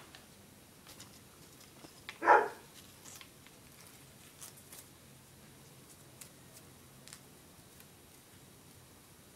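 A dog barks once, about two seconds in, over faint clicking and rustling of paper strips being handled.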